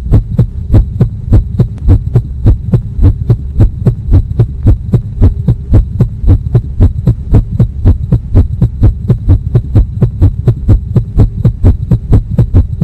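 Rapid, even low thuds, about four a second, pounding over a steady low hum, in an edited-in sound track that starts and stops abruptly.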